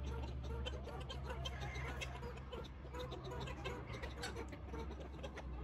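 Chickens clucking softly amid irregular light clicking and tapping, over a low steady hum.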